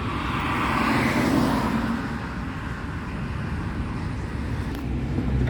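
A road vehicle passing by: its noise swells during the first second and fades by about two seconds in, over a steady low traffic rumble.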